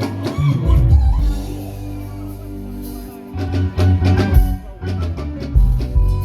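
Music with bass, guitar and drum kit, quieter for a moment about two seconds in before the beat returns.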